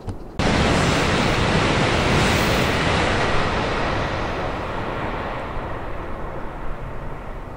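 Shinkansen bullet train passing at high speed: an even rushing noise that starts abruptly about half a second in and slowly fades.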